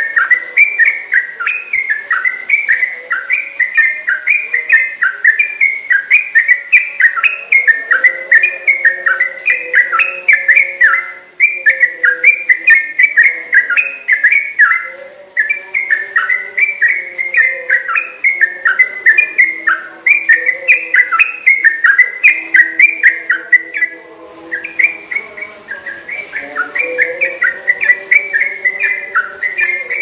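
Yellow-vented bulbul (trucukan) singing a long, unbroken run of whistled notes, each sliding down in pitch, about two to three a second, pausing only briefly a few times.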